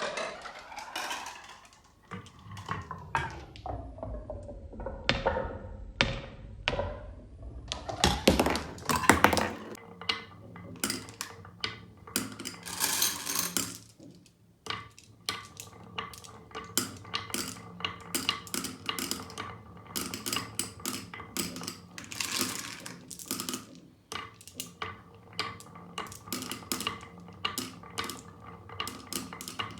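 Marbles rolling down a marble run track, clicking and clacking against the track pieces and each other in a long run of quick taps. A whirring tone slides down in pitch over the first several seconds.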